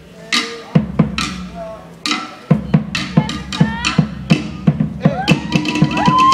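Tahitian drum ensemble playing sharp, cracking strikes over a lower drum. The strikes are scattered at first, then settle into a steady fast beat of about three strikes a second. Near the end, long high drawn-out calls rise over the drumming.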